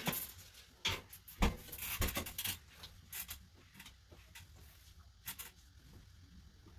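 Scattered knocks and rubbing from cleaning, with a sharper knock about one and a half seconds in.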